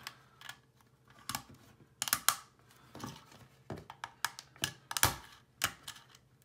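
Irregular clicks and knocks of 3D-printed plastic as a print-in-place ball bearing is thumbed into the hub of a 3D-printed wheel, seating with a snug press fit. The loudest knock comes about five seconds in.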